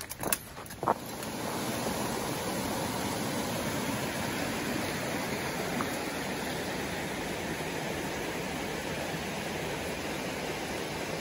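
A few footsteps in the first second, then a steady, even rushing noise, like a mountain stream, sets in about a second and a half in and holds.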